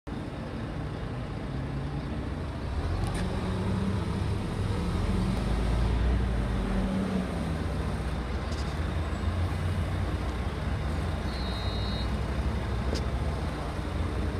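Suzuki GSX-R 750 inline-four engine running steadily. Its pitch and level rise about three seconds in and drop back about four seconds later.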